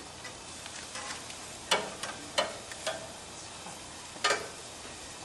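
Fish burger patties sizzling on a barbecue grill, with a metal spatula scraping and clacking against the grill grates in four sharp strokes, the first about a second and a half in and the last about a second before the end.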